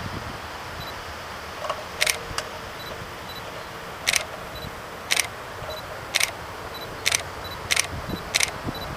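Steady distant rumble of the Antonov An-12's four turboprop engines at takeoff power. From about two seconds in, a run of sharp, high clicks comes roughly once a second and is louder than the engines.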